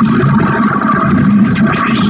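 Improvised noise electronics from drone synths and effects: a steady low drone under a dense wash of harsh noise, with brief crackly flickers near the end.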